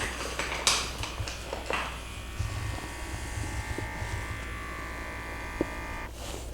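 A few clicks and rustles of handling, then a small handheld electric motor device buzzing steadily for about four seconds before switching off abruptly.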